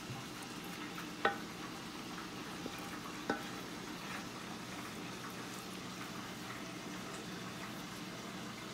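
Soft, wet scraping of thick macaroni and cheese being spooned and scraped out of a bowl into a metal baking pan, with two light knocks of utensil or bowl against metal, about one and three seconds in. A steady low hum runs underneath.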